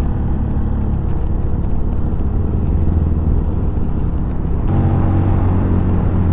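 Honda CB150 motorcycle's single-cylinder engine running steadily under way, heard from the bike. The engine note changes abruptly, with a short click, about three-quarters of the way in.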